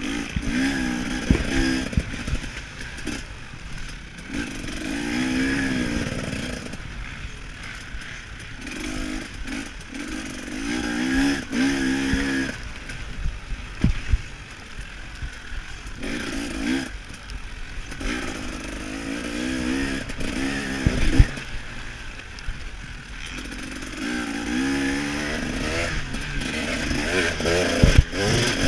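KTM 300 XC-W two-stroke dirt bike engine under race throttle, revving up and dropping off again and again, with a few sharp knocks from the bike over rough ground.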